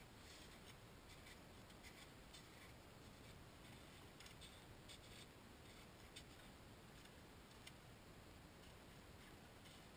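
Faint, irregular ticks of a steel ice chisel (spud bar) striking lake ice, chopping a hole, over near silence.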